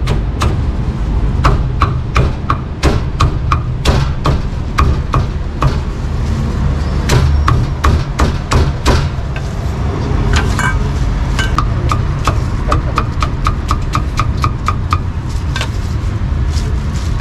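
Cleaver chopping roast meat on a wooden chopping block: sharp, uneven chops at first, then a quick even run of about four a second in the middle, over a steady low rumble.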